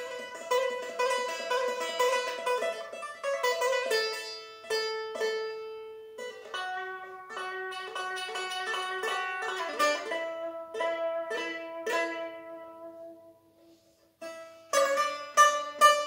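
A small three-stringed lute played solo, improvised: quick repeated plucked notes at first, then slower single notes, a short pause about thirteen seconds in, and fast picking again near the end.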